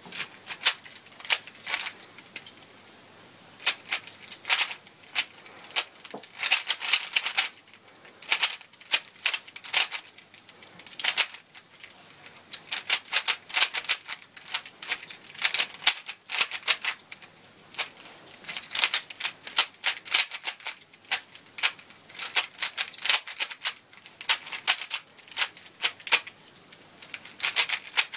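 A 3x3 Rubik's cube being turned fast by hand during a timed solve: quick runs of plastic clicks and clacks from the layers snapping round, with short pauses between the bursts.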